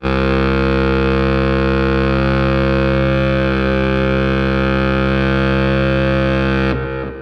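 A loud sustained musical chord, a dense steady drone of many pitches, that starts abruptly, holds for about seven seconds and then fades away near the end.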